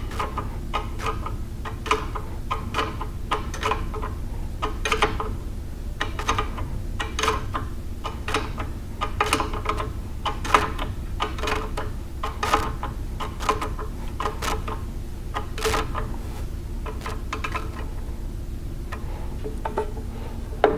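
A wrench clicking in a steady series of short metallic clicks, a few per second, as the locking nut on the grinder's tracking and tensioning device is snugged up and backed off, over a steady low hum.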